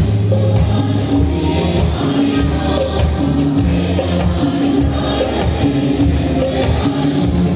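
Christian worship music played live on electronic keyboards, one a Korg Triton Le, over a steady bass line and a fast, even percussion beat.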